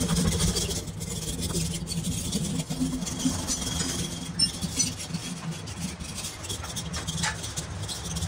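A machine running steadily with a low hum, with scattered light clicks and taps over it.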